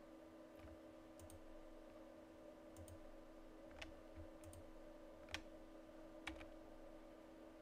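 Quiet computer mouse clicks, about seven scattered through, several of them in quick pairs, over a faint steady hum.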